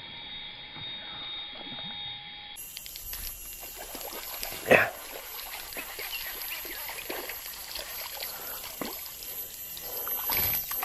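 Water splashing and sloshing in small scattered bits, with one sharp, loud splash almost halfway through.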